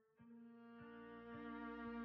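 Quiet background music of held bowed-string notes over a low drone, coming in just after the start and growing louder, with the notes changing every half second or so.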